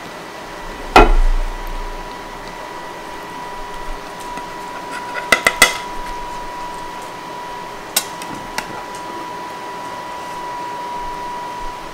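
Serving utensil knocking and clinking against a baking dish while a smothered burrito is lifted out. There is one loud knock about a second in, a quick run of clinks around the middle, and two lighter clicks later, over a faint steady high tone.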